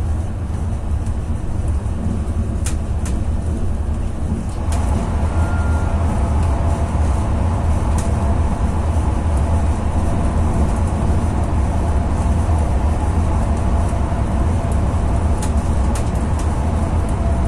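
Running noise of a YHT high-speed train heard from inside its last car: a steady low rumble. About five seconds in it gets louder and fuller as the train enters a tunnel, with a few sharp clicks along the way.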